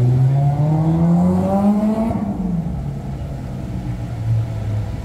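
A road vehicle's engine accelerating: its pitch climbs steadily for about two seconds, drops as it shifts up, then settles into a lower steady drone.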